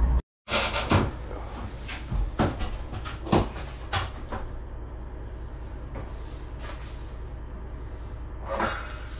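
Sharp metal knocks and clicks of the lid of a stainless steel bulk milk tank being handled and opened, bunched in the first few seconds, over a steady low hum.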